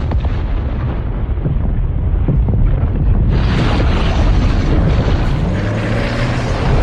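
Movie sound effects of a deep, continuous rumble of fire and eruption, growing louder and brighter about three seconds in.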